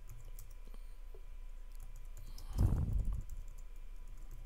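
Computer keyboard typing: scattered, light key clicks as a command is typed in, with a short low rumble about two and a half seconds in.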